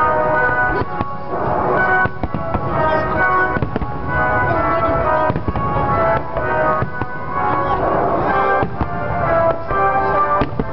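Aerial fireworks bursting in quick succession: repeated bangs and crackling that never let up, heard over music with held notes that change every half second or so.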